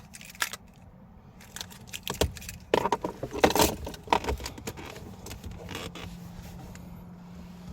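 Car keys jangling and clicking as they are handled, with the busiest clatter about three to four seconds in. A low steady hum sets in about five seconds in.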